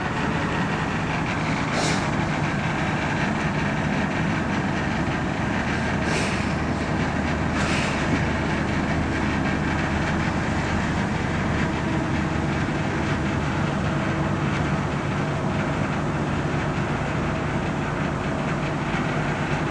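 Fishing cutter's diesel engine running with a steady low drone, with a few short hisses about two, six and eight seconds in.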